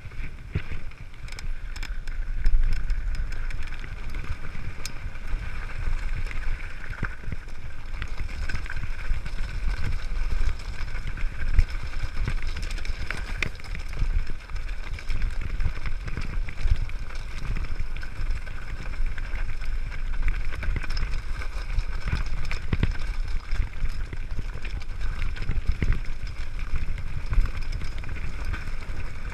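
Mountain bike riding fast downhill over a loose gravel track: tyres on stones and the frame and parts rattling, with frequent sharp knocks over bumps. A heavy rumble of wind buffets the microphone.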